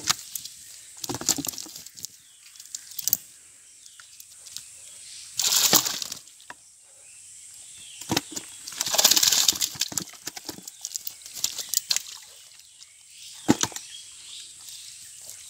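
Fish flapping and a wet cast net being pulled and rustled by hand in the mud, in irregular short rustles and clicks, with two louder, longer bursts about five and nine seconds in.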